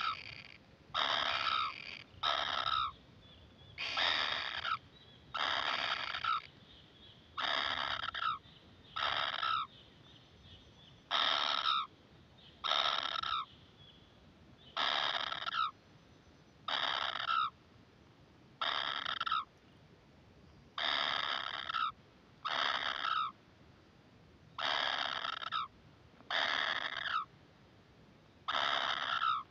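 Kingfisher nestlings giving short, harsh begging calls, about half a second each, repeated every second or two and often in pairs.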